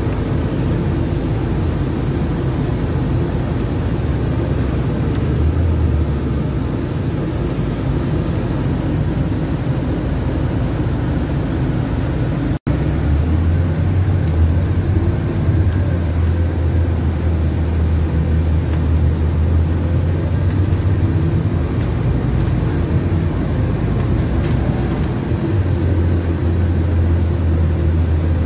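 Scania CityWide LF 10.5 CNG city bus under way, heard from inside the cabin: a steady low engine drone with road noise. The drone grows heavier about halfway through, just after a split-second gap in the sound, and eases briefly near the end.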